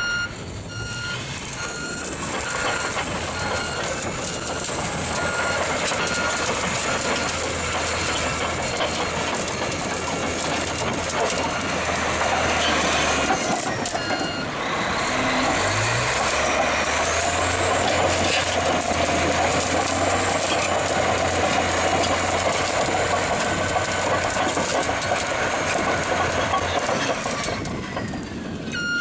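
A heavy construction machine's diesel engine running under load, with its reversing alarm beeping at the start and again at the end. Near the middle the sound breaks briefly and the engine then revs up.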